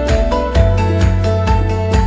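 Upbeat background music with a steady beat, about two beats a second, over a strong bass line.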